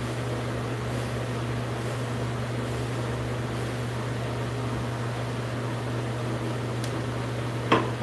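Steady low hum of a running fan, with faint soft strokes of a hard wave brush through short hair about once a second. A sharp click near the end.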